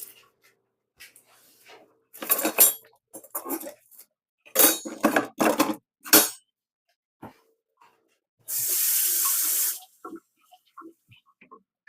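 Kitchen water: several short bursts of splashing and rinsing, then a tap running steadily for just over a second near the end.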